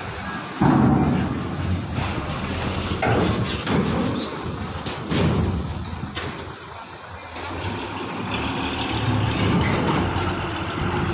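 Diesel truck engines running and pulling away as trucks drive onto a roll-on/roll-off ferry, with a sudden loud swell about half a second in and further rises in engine noise through the stretch.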